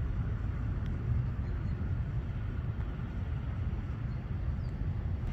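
Steady low rumble of distant road traffic, with no single event standing out.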